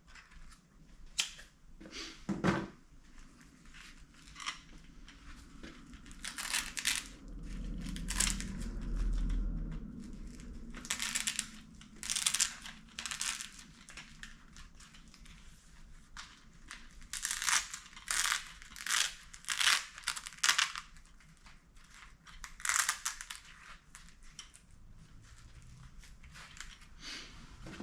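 Hand snips cutting small marking nicks, a run of short crunching cuts in clusters with rustling handling noise between them.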